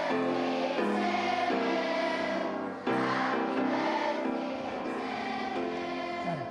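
Schoolchildren singing together as a group, held sung notes in phrases with short breaths between them.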